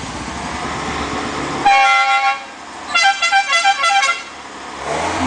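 Vehicle horn sounding: one steady honk about two seconds in, then a quick string of short toots for about a second. A low vehicle rumble runs underneath at the start.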